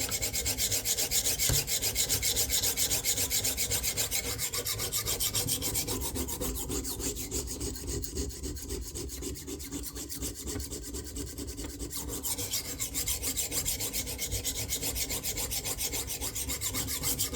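Coarse 140-grit stone of a KME guided sharpener rasping back and forth along the stainless edge of a Bubba Blades 7-inch fillet knife in quick, steady strokes, grinding in a burr along the edge. The strokes go lighter for a few seconds midway, then pick up again.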